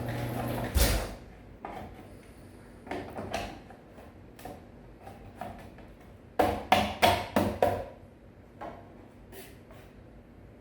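Automatic garage door opener humming, then stopping with a heavy thud about a second in as the door reaches the end of its travel. Then scattered light knocks, and about six and a half seconds in a quick run of five sharp clicks.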